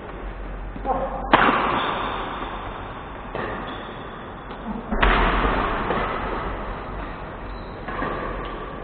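Badminton rackets striking a shuttlecock in a rally: sharp cracks that echo in a large hall. The loudest comes about a second and a half in and another about five seconds in, with lighter hits between.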